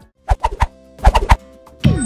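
Short musical transition stinger between list items: a few percussive hits, a quick run of hits about a second in, then a falling swoosh near the end as the background music returns.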